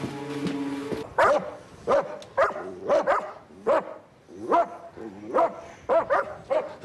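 Tracking dogs barking over and over, about one bark every two-thirds of a second. A stretch of steady music cuts off about a second in.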